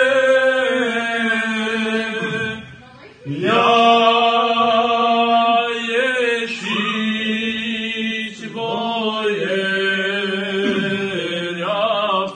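A man singing unaccompanied in Romanian, a religious song calling on the Lord ('Doamne'), in long drawn-out notes that shift in steps. There is a break for breath about three seconds in.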